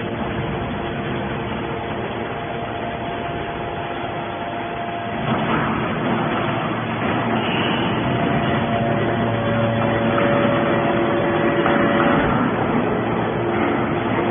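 Scrap metal baler running: steady machine noise with several humming tones that shift in pitch, getting louder about five seconds in.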